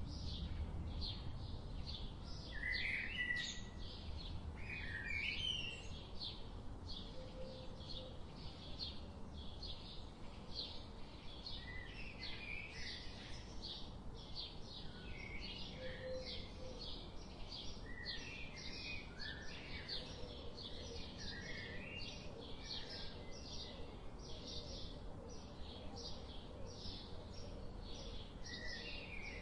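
Birds chirping, with a high chirp that repeats evenly about three times a second under scattered shorter calls.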